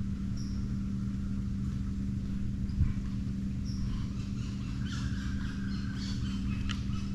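A steady low hum runs throughout, with a bird's short high chirp twice and light clicking and rustling in the second half.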